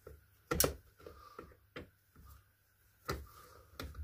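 Hand tools clicking and knocking against a tightly fastened metal part of a model buggy: a handful of sharp, irregular clicks, the loudest about half a second in and another strong one around three seconds in.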